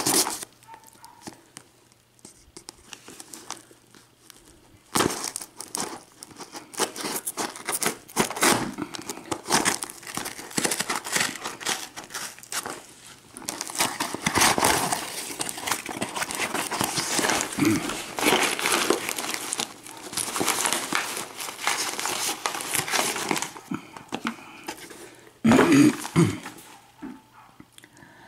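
A Priority Mail package being slit and torn open with a pocket knife and its paper wrapping crumpled and rustled, in bouts of crinkling and tearing with short pauses. A louder burst comes near the end.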